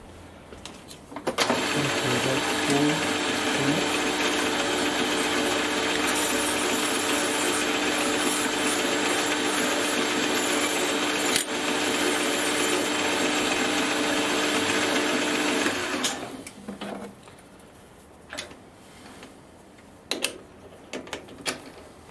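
A small metal lathe starts about a second in and runs steadily with a motor hum and the hiss of a cut for about fourteen seconds, then stops. A few light clicks of handling follow.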